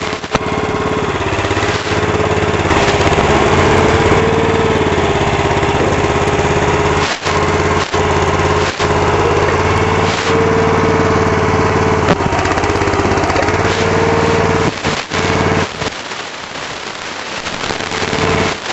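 The small engine of a Burro truck-mounted walkie forklift running steadily, its pitch rising and falling slightly a few times as the machine is worked. It eases off to a lower level near the end.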